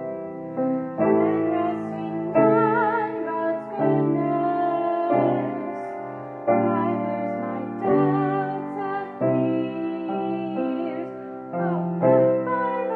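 Grand piano playing a hymn, chords struck every second or so, with a woman singing the melody with vibrato.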